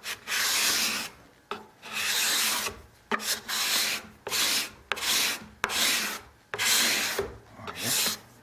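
Steel cabinet scraper (card scraper) being pushed over wood in repeated strokes, about one a second. Each stroke starts with a sharp tick and then gives a raspy scrape as the freshly turned burr takes off extremely fine shavings.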